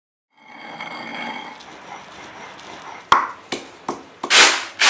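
A ringing tone for the first couple of seconds, then a stone pestle pounding ingredients in a stone mortar (khalbatta): about five sharp strikes, the last two loudest.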